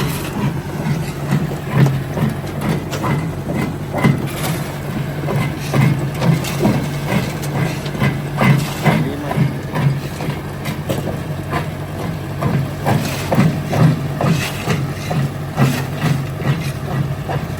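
Jaw crusher plant crushing stone: a heavy engine drones steadily under frequent irregular knocks and clatter of rock being broken.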